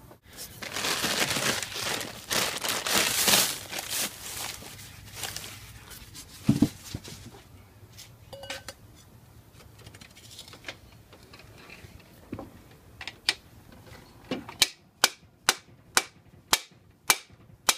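A mallet striking a sleeve driver in quick, even blows, about two a second, in the last few seconds, driving a chilled new cylinder sleeve down into the bore of a Toyota 2.2 L L-series diesel block. Before the blows come several seconds of loud rushing noise and a single knock.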